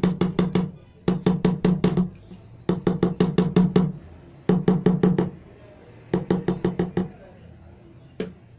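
Silicone spatula beating thick cream in a stainless steel pot: runs of quick, even slapping strokes, about eight a second, each run lasting about a second with short pauses between, then a single click near the end.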